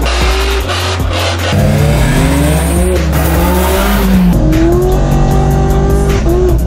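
Car engine revving in repeated rising pulls with tyres squealing in a burnout, over bass-heavy music.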